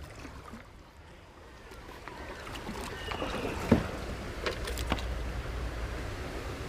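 Kayak being paddled on a creek: water splashing and rushing around the hull, growing louder after about two seconds, with a few sharp knocks, the loudest about halfway through.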